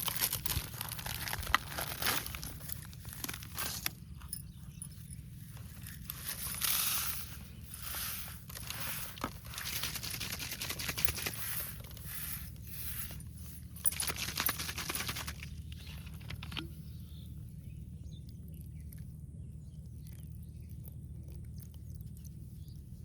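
Irregular rustling and crinkling handling noises, dying away after about sixteen seconds to a steady low hum.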